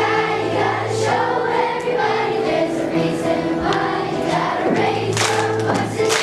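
Young girls singing a song together over instrumental accompaniment.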